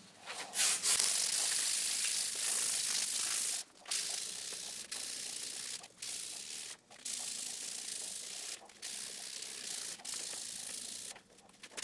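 Hand-sanding with a sheet of 220-grit sandpaper: a steady scratchy rasp in long strokes, broken by short pauses every second or two.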